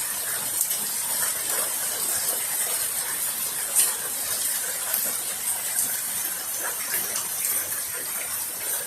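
Heavy rain falling steadily: an even hiss with scattered drop ticks, and one louder tick about four seconds in.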